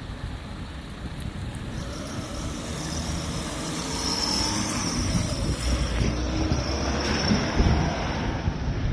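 Motor traffic passing on a rain-wet city street, with the tyres hissing on the wet road and growing louder through the middle as a vehicle comes close. Wind rumbles on the microphone underneath.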